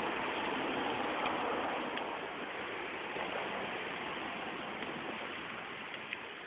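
Steady wash of water over wet pavement, slowly fading, with a few faint ticks.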